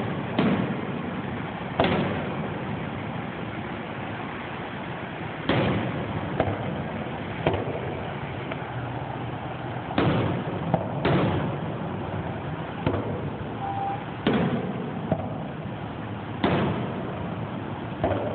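Fireworks display: aerial shells going off with sharp booms, about a dozen at uneven gaps of one to two seconds, over a steady background hiss.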